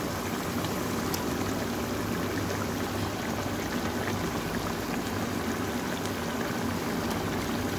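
Minced mutton bubbling steadily in a steel pan in its watery garlic-ginger liquid, simmering over medium heat.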